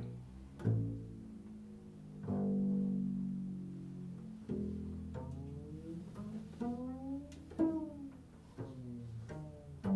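Improvised solo music on a low string instrument: plucked notes ringing on, with several notes sliding up or down in pitch.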